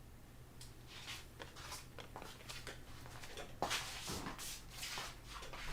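Faint handling noises: scattered light clicks and rustles, a little busier in the second half, over a low steady hum.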